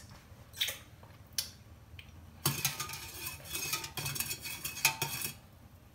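Metal spoon stirring sugar into sorrel drink in an enamel mug, clinking against the mug's sides: two single clinks, then about three seconds of quick, continuous clinking and scraping.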